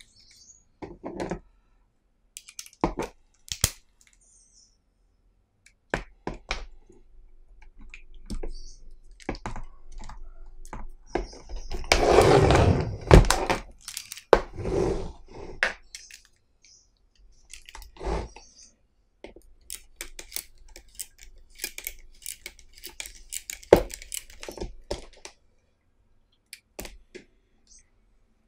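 Handling noise of a plastic-and-metal flexible shaft extension and bit holder being fitted to an electric drill: scattered clicks, clacks and knocks on a wooden tabletop, with a denser, louder stretch of rattling and rustling near the middle.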